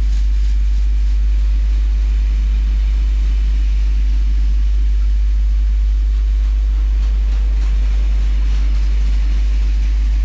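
Freight train of coal wagons rolling past: a steady low rumble with the hiss of wheels on rail, and faint repeated clicks of wheelsets over rail joints near the start and again near the end.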